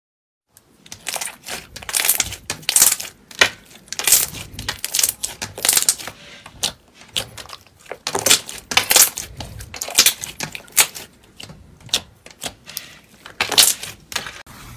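Clear green slime being squeezed, pinched and pressed by hands, giving a quick run of sharp, irregular sticky clicks and pops starting about half a second in.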